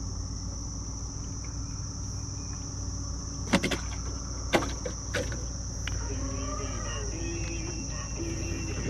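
A steady, high-pitched drone of insects from the riverside vegetation. A few sharp clicks and knocks come in the middle, as fishing tackle is handled in the boat.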